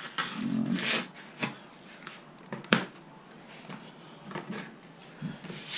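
Workbench handling noises from hands and tools on a foam-and-Kevlar model wing: scattered light knocks and clicks, one sharp click about three seconds in, and brief faint scraping.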